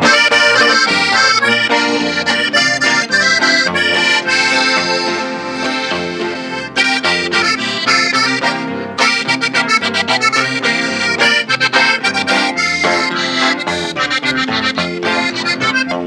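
Norteño band playing an instrumental introduction: a button accordion carries the melody over strummed guitar and electric bass.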